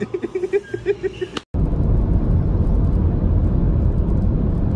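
Short bursts of voices, then, about a second and a half in, a steady low rumble of road and engine noise heard inside a car's cabin.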